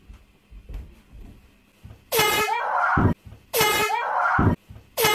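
Handheld air horn blasted three times in quick succession, each blast about a second long and loud, starting about two seconds in; a few soft thuds come before it.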